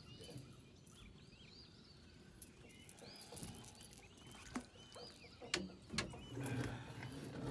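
Songbirds chirping, many short arched calls, with several sharp clicks and knocks in the second half.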